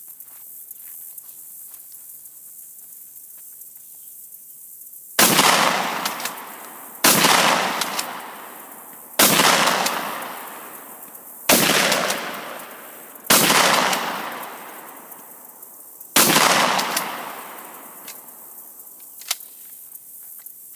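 Rock Island M5 12-gauge pump-action shotgun fired six times, a shot every two seconds or so. Each blast is followed by a long echo that dies away.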